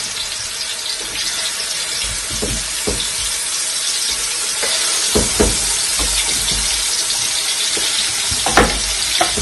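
Pieces of seasoned cow foot frying in hot oil in a pot, a steady sizzle that builds a little as more pieces go in. A few short knocks of the spoon and meat against the pot.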